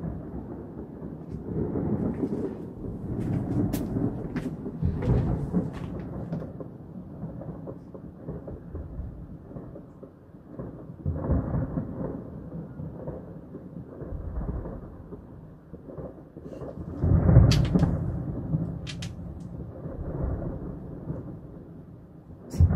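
Thunder rumbling in rolling waves that swell and fade, the loudest about seventeen seconds in, with a few sharp crackles.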